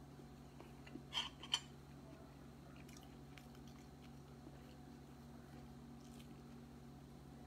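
A person biting into and chewing a fried omelet: two sharp crunches about a second in, then faint chewing clicks, over a low steady hum.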